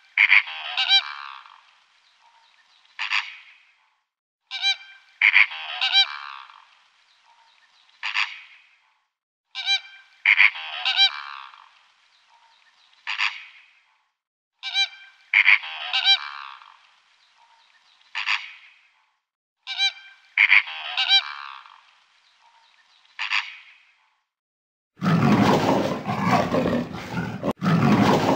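Honking animal calls from a short recording looped about every five seconds, each loop a few short calls and one longer call. Near the end a different, louder, continuous rough sound takes over.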